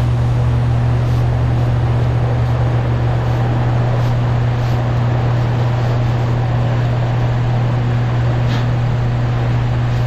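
Steady mechanical hum with an unchanging low pitch and a constant hiss above it, with a faint tick about eight and a half seconds in.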